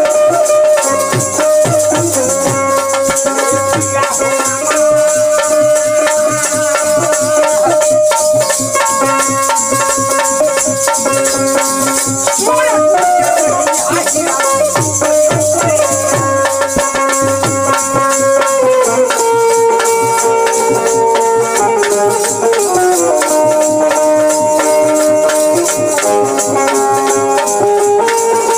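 Instrumental Bhojpuri folk music: a dholak drum keeping a steady beat under a held melody from keyboard and a keyed banjo, with a continuous jingling rattle of hand percussion. The melody shifts down in pitch a little past the middle.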